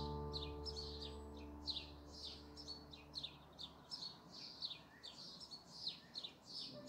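Small bird chirping over and over in short, high, falling notes, about three a second, while the last sustained chord of background music fades away in the first few seconds.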